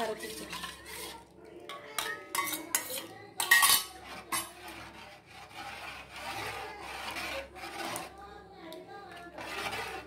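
A small steel bowl and a metal ladle clinking and scraping against a large metal pot as a sambar powder mixture is poured in and stirred through thick dal and vegetables. There are a few ringing clinks about two to three seconds in and the loudest clank just after, then softer scraping and stirring.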